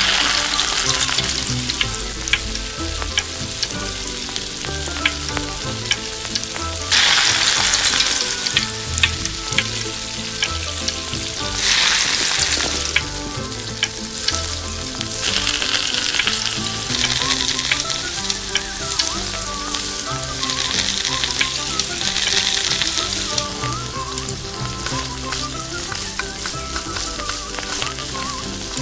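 Turmeric-marinated fish pieces deep-frying in hot oil in a miniature steel pot, a steady sizzle that swells each time a new piece goes in. Sharp clicks of the metal tongs and spatula against the pot as the pieces are turned.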